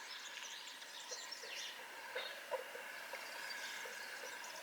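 Faint birds chirping in short, scattered calls over a quiet steady background.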